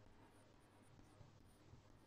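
Near silence with faint chalk writing on a blackboard, including a couple of light ticks in the second half.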